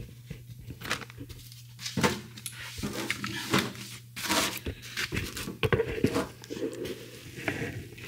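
Handling noise from the camera being picked up and repositioned: rubbing, rustling and irregular clicks and knocks close to the microphone, over a steady low hum.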